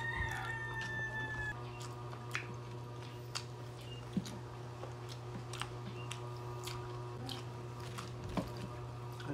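Close-up eating sounds of fried chicken: chewing with a handful of short crisp crunches from the breaded skin. A steady low hum runs underneath.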